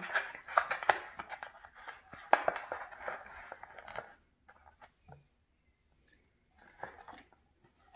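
Phone-box packaging and accessories being handled: a run of rustling, clicks and small scrapes for about four seconds, then only a few scattered taps.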